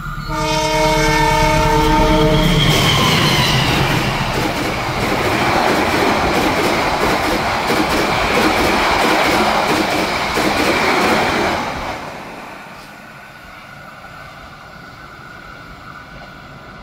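A CC 206 diesel-electric locomotive's horn sounds one long blast of several notes at once. Then the locomotive and its passenger coaches run through at speed with rail clatter for about nine seconds. About twelve seconds in, the sound drops away as the train recedes.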